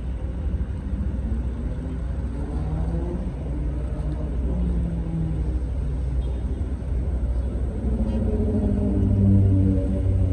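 Low, steady engine rumble with a pitched drone that shifts slightly in pitch and grows louder near the end.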